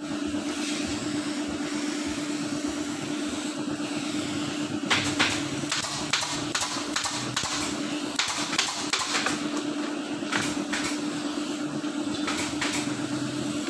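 Small gravity-feed spray gun hissing steadily with compressed air as it sprays paint, over a steady hum. From about five seconds in come scattered sharp clicks.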